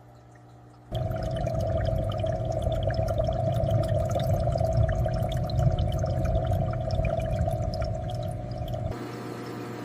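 Aquarium water bubbling and gurgling, with many small popping bubbles. It starts abruptly about a second in and cuts off abruptly near the end, leaving a quieter steady hiss.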